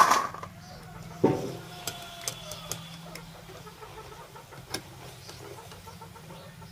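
Metal wire skimmer clattering against a steel plate as fried pakoras are tipped onto it: a loud ringing clang right at the start and another about a second later. Then a few light clinks of the skimmer against the iron wok as the next batch is lifted from the oil, over a low steady hum.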